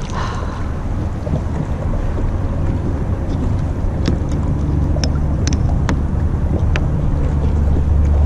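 Wind buffeting the camera microphone: a steady low rumble, with a few sharp clicks and knocks from handling on the kayak. A low motor hum comes in about halfway through.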